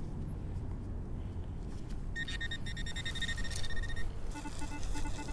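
Metal detector target tones: a steady high tone starting about two seconds in and lasting about two seconds, then a lower tone pulsing a few times a second, over low handling rumble.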